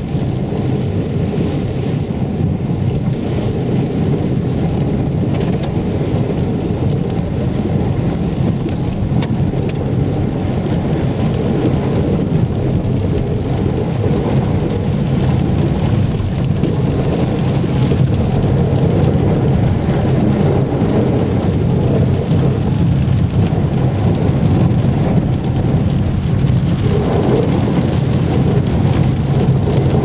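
Heavy rain drumming steadily on a moving car's roof and windscreen, heard from inside the cabin, over the car's low road noise.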